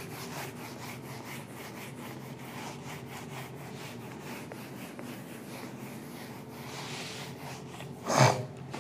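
Whiteboard duster rubbing across a whiteboard, wiping off marker writing with steady back-and-forth strokes. A brief louder sound comes near the end.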